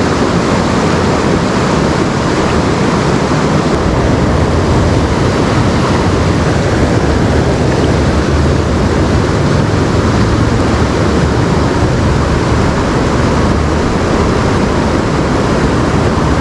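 Loud, steady rush of a fast river's current, running high after rain.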